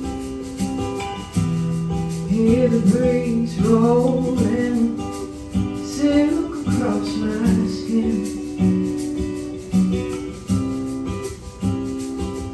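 Acoustic guitar playing the intro of a song: plucked chords that ring out, with a fresh attack about once a second. For a few seconds in the middle a gliding, wavering melody line sounds over them.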